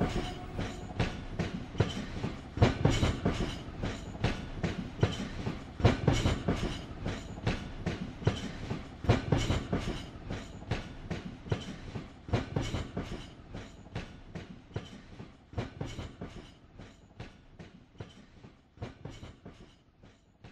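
Train wheels clattering over rail joints in a steady rhythm, with a heavier clunk about every three seconds, slowly fading out. This is the recorded train clatter that closes the song, left on its own after the music ends.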